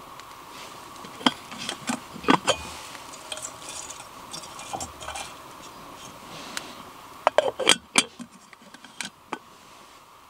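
Metal clinks and rattles of a small camping kettle's lid and wire handle being handled, in two bunches of sharp knocks.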